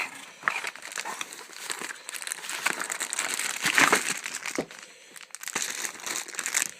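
Plastic packaging crinkling and rustling as it is handled and unwrapped, with many small clicks, loudest about four seconds in and briefly quieter a second later.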